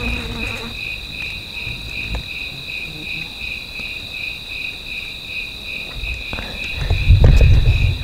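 Night insects calling: a fast, even pulsing trill with a steady high whine above it. A low rumble rises near the end and is the loudest part.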